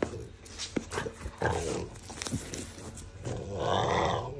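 A dog growling, with scattered clicks and knocks; the longest, loudest growl comes near the end.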